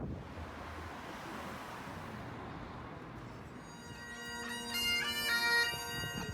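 A steady rushing hiss, then about three and a half seconds in bagpipes start playing: steady drones under a moving chanter melody.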